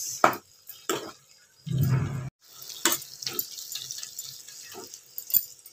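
A spoon scraping and knocking against a pan about half a dozen times while a thick capsicum and onion masala is stirred, with a faint sizzle from the frying. There is a short low rumble about two seconds in.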